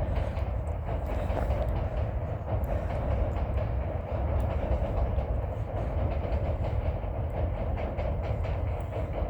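A long train passing, a steady continuous rumble with faint scattered clicks over it.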